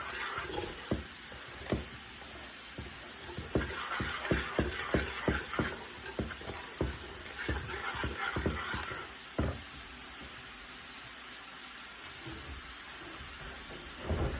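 A spoon stirring batter in a bowl, knocking against the bowl roughly twice a second, stopping about two-thirds of the way through; a steady sizzle of food frying in a pan continues underneath.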